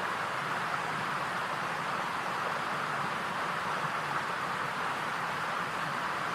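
Steady, even hiss with no other sounds standing out.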